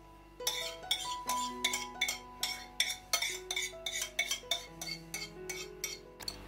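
Metal wire whisk clinking against ceramic bowls in quick, uneven strokes, about three to four a second, stopping just before the end.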